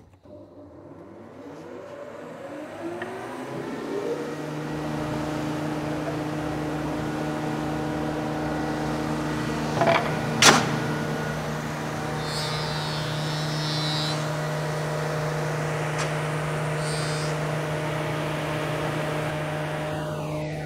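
Thickness planer starting up: its motor spins up over about four seconds, then runs at a steady hum. A sharp, loud noise comes about ten seconds in, and short bursts of hiss follow a few seconds later.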